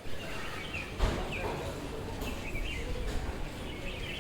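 Small birds chirping in short, repeated calls over a steady low outdoor rumble, with a single thump about a second in.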